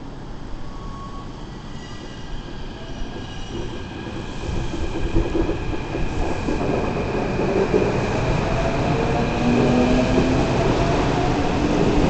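Keikyu 1500-series electric train pulling away from a station platform and accelerating, its traction motors whining in steady tones that rise in pitch from about four seconds in, over a wheel-and-rail rumble that grows steadily louder as the train comes near.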